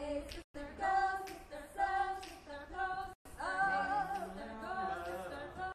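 Girls' a cappella group singing in close harmony, several voices holding and moving between chords together. The recording drops out for an instant twice.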